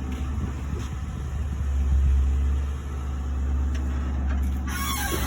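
Car engine running with a steady low exhaust rumble that swells briefly about two seconds in. A rushing hiss comes in near the end.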